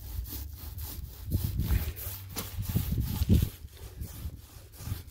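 Small paint roller worked back and forth against a boat's hull, laying on wet primer: a quick, rhythmic rubbing, stroke after stroke, over a low rumble.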